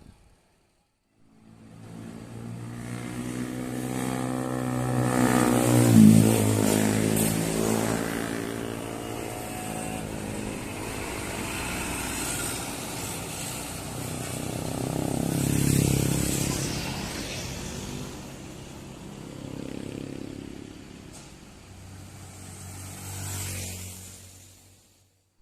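Road traffic passing: a large bus engine grows louder to a peak about six seconds in, its pitch dropping as it goes by, and further vehicles pass about sixteen and twenty-three seconds in.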